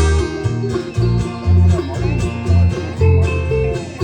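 Bluegrass band playing an up-tempo instrumental intro: banjo and guitar picking over a walking bass line.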